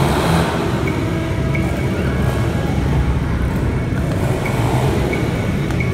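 Several motorcycle engines running together inside a steel-mesh globe of death, a loud, steady drone.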